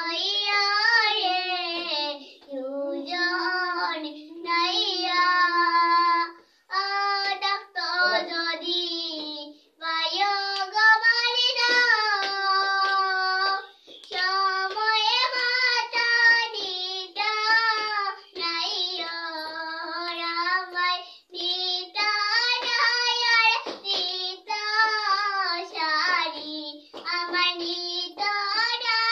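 A young girl singing solo without accompaniment, in phrases of a few seconds with short breaks for breath between them.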